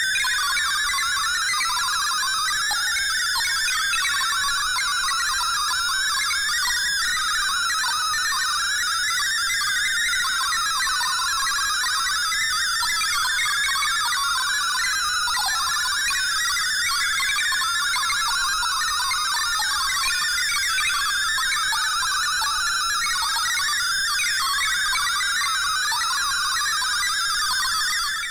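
Sci-fi spaceship computer sound effect: a steady wash of rapid electronic beeps and bleeps, with warbling tones that waver up and down and a steady high tone underneath.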